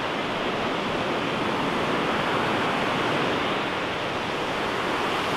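Steady rush of whitewater, a river cascading over boulders below a footbridge.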